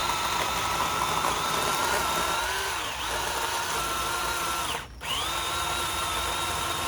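Electric power saw cutting into a tree limb: a steady motor whine that drops in pitch under load for a moment, stops briefly about five seconds in, then starts up again and keeps cutting.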